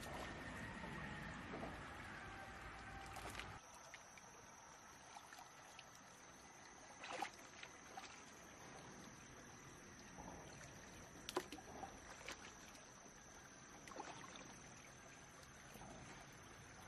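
Faint water of a shallow rocky stream, with scattered small splashes and knocks as hands reach into the water among stones. A few seconds in the background drops abruptly and a faint steady high whine comes in.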